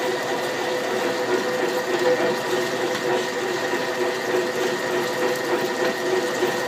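Boring machine running steadily, taking a cut to open a steel hitch-plate pin hole toward 1¼ inch: a constant motor whir with a steady hum.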